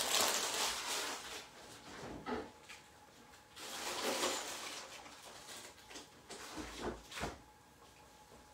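A plastic bag of spinach rustling, then the refrigerator being opened and shut, with a few sharp knocks and clunks and another burst of rustling in between.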